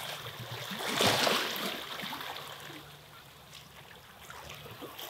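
Saltwater lapping and trickling along the shore, with one louder wash about a second in that fades away.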